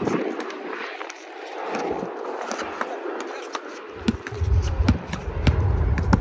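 A basketball bouncing on a concrete court as it is dribbled, with sharp repeated bounces that come more regularly near the end, and sneakers scuffing on the court. A low rumble joins about four seconds in.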